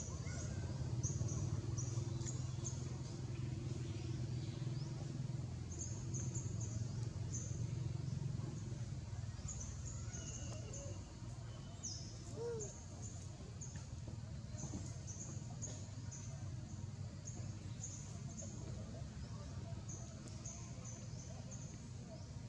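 Outdoor ambience: a small bird's high, short chirps repeated in quick runs of three to five, over a low steady hum that eases off about a third of the way in.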